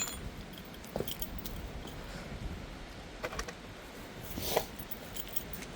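Scattered light clicks and clinks of small parts or covers being handled, with a brief rustle about four and a half seconds in.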